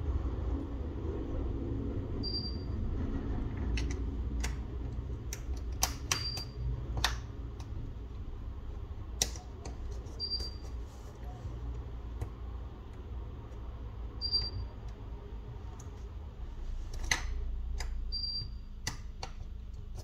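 Light, irregular clicks and taps of small repair tools and parts during smartphone disassembly, over a steady low hum. A short high beep repeats about every four seconds.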